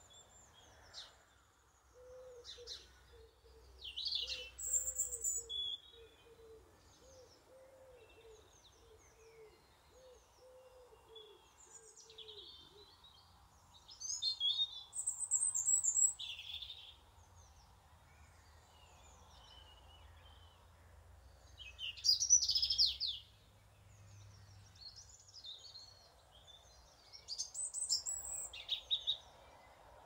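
Garden songbirds singing several loud bursts of high, rapid phrases, with quieter chirps between them. Under the first ten seconds or so runs a low cooing call, repeated steadily and then stopping.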